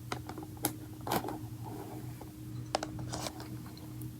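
A handful of separate light taps and scrapes from hands handling unboxing packaging, over a faint steady hum.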